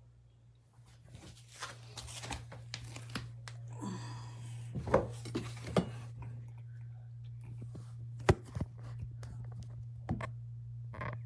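Irregular sharp clicks and knocks with a short rustle about four seconds in, over a steady low hum.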